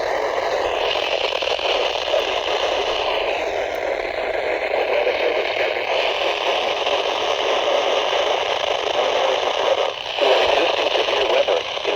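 Weather radio receiver putting out steady static hiss with no station coming through, as it is tuned for a weak, distant weather broadcast. The hiss drops out for a moment about ten seconds in.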